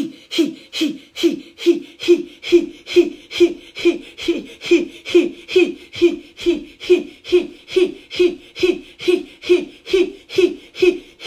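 A woman voicing the qigong 'he' healing sound for the heart: a short, breathy 'ha' repeated about two and a half times a second, each one dropping in pitch.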